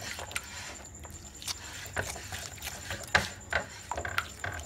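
A spatula stirring melted butter and icing sugar in a glass bowl, with irregular light taps and scrapes of the spatula against the glass.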